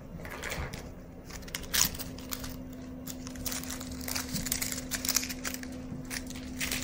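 Foil crinkle ball crinkling in irregular rustly crackles as a kitten bats and bites at it.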